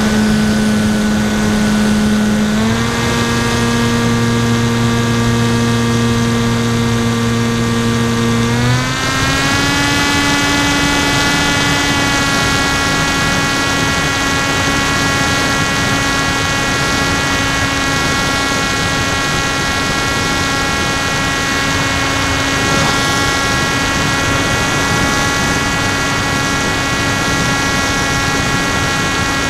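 NTM 2836 1200kv brushless motor spinning a 10x5 APC propeller on an FX-61 Phantom flying wing, heard from the plane's own onboard camera: a steady propeller drone over a hiss of rushing air. Its pitch steps up about three seconds in, rises again around nine seconds in, then holds steady.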